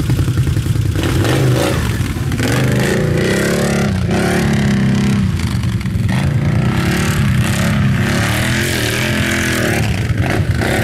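ATV engine revving up and down repeatedly under load while the quad is bogged in deep mud, its rider working the throttle from beside the machine.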